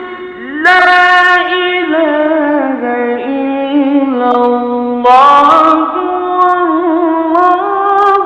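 Solo male voice chanting Quran recitation in the melodic tajwid style, holding long ornamented notes that slide between pitches. The voice drops lower in the middle, and a new, louder phrase starts about five seconds in.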